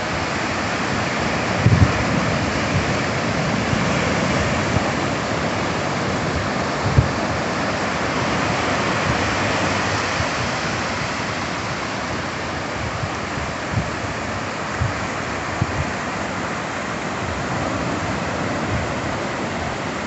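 Ocean surf: a steady rush of waves breaking and washing up a sandy beach. A few brief low thumps stand out, the strongest about two and seven seconds in.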